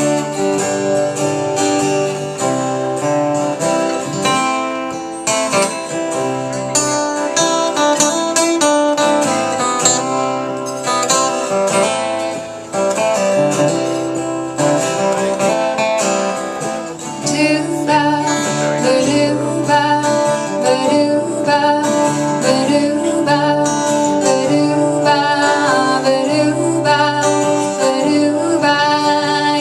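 Live acoustic guitar music, strummed and picked, in an instrumental stretch of a country-style song.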